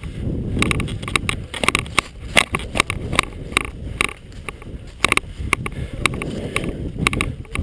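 Irregular clicks and clatter over a low rumble.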